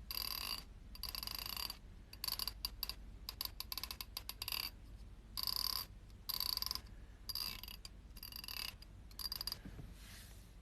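Teeth of a comb being scratched with a finger in repeated strokes, about one a second, each a short rasping zip, with a few slower strokes where the single teeth click one by one. This is the sound used to make a cat gag.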